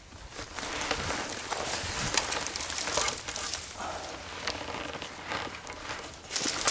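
Footsteps crunching over dry ground and brush, with steady rustling and small crackles.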